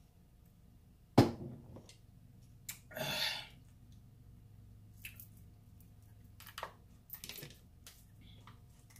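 King crab leg shell cracking sharply about a second in, followed by a short noisy burst and a few lighter clicks and snaps as the shell is broken apart and the meat picked out.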